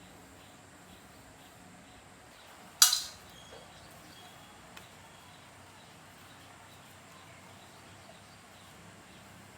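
A single sharp knock with a brief ring-out about three seconds in, then a faint click a couple of seconds later, over low background noise.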